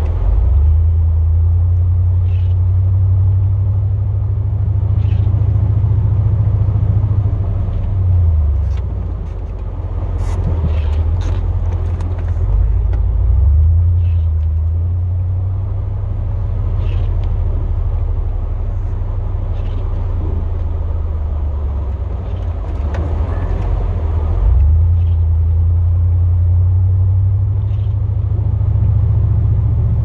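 Chevrolet Silverado plow truck running with a steady low rumble, its pitch dipping and climbing again a few times as the truck changes speed. A few faint ticks sound now and then.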